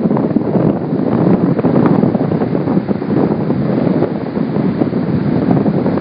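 Strong wind of 25+ mph buffeting a phone's microphone in uneven gusts, with rough ocean surf underneath.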